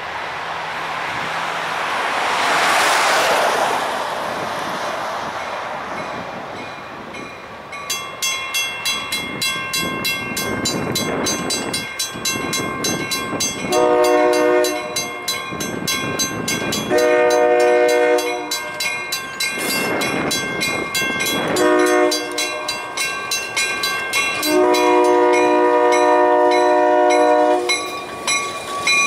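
Yorkrail diesel locomotive sounding its air horn in the grade-crossing signal, two long blasts, a short and a final long, while a crossing bell rings rapidly and steadily from about eight seconds in. Before that, a broad rushing sound swells and fades about three seconds in.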